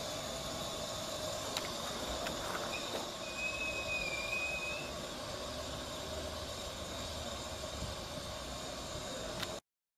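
Steam locomotive Southern Maid, a 15-inch gauge miniature Pacific, standing on a turntable with a steady hiss and a low running hum. A thin, brief squeal comes a few seconds in.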